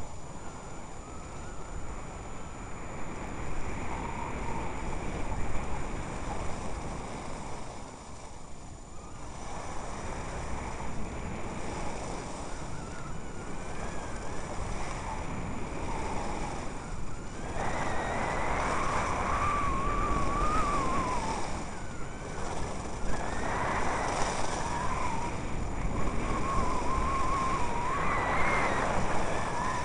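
Skis sliding and carving over groomed snow with wind rushing over the microphone at speed. It grows louder about two-thirds of the way through, with a wavering whine over the rush.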